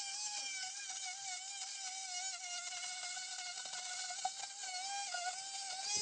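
Handheld power cutting tool running with a steady high whine, its pitch dipping briefly several times as it comes under load while cutting into the hive section.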